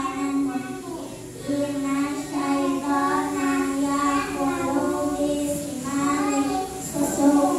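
Young girls singing together into a handheld microphone, in long held notes, with a brief breath pause about a second in.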